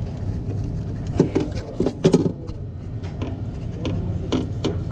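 Irregular sharp clicks and knocks, the loudest a cluster about two seconds in, over a steady low machinery hum.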